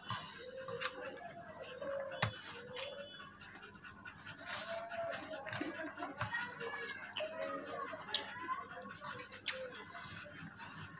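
Rice and fish curry being mixed and squeezed by hand on a steel plate: wet squishing with sharp clicks of fingers and rice against the metal, the strongest about two seconds in.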